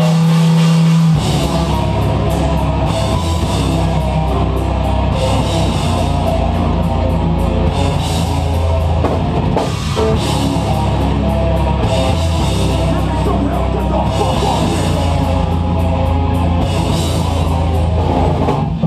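Heavy metal band playing live: distorted electric guitars with pounding drums and cymbals. A single held note gives way to the full band about a second in.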